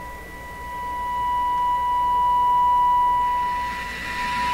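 Test tone from an FM signal simulator, played through a Nordmende Globetraveler III radio's speaker as the dial is tuned across the station. A steady high tone with a fainter higher tone over it grows louder about halfway through, then fades again as hiss comes in near the end.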